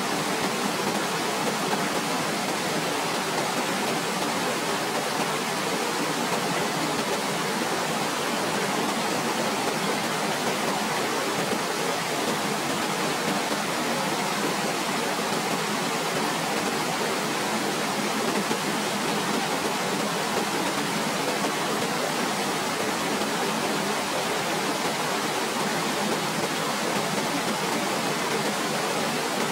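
Waterfall: a steady, even rush of falling water with little deep rumble.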